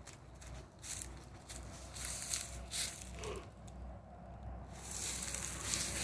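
Footsteps crunching through dry fallen leaf litter, irregular steps with a lull in the middle and denser crunching near the end.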